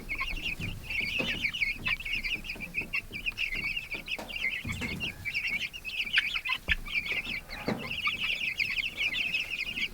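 A flock of Cornish-cross meat chicks peeping without pause, many short high chirps overlapping, with a few faint knocks.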